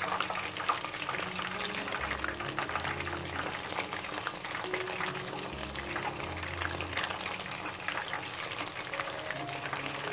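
Battered chicken pieces deep-frying in hot oil in a wok, a dense steady crackling sizzle as the oil bubbles around them on reduced heat. Soft background music with low held notes plays underneath.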